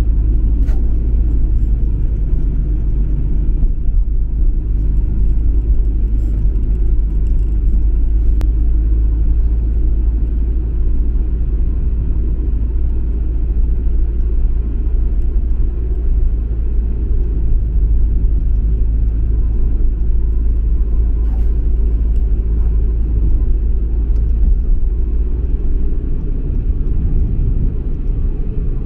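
Steady low rumble of a car on the move: road and engine noise, unchanging throughout, with a couple of faint ticks.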